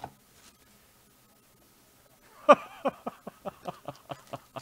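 Trading-card box and foil pack being handled: quiet at first, then about halfway through a sharp click followed by a quick run of lighter clicks, about five a second, that fade.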